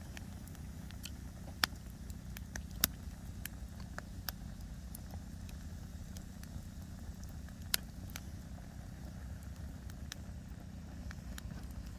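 Wood fire crackling: scattered sharp pops and snaps, three of them louder than the rest (about a second and a half in, near three seconds, and near eight seconds), over a steady low rumble.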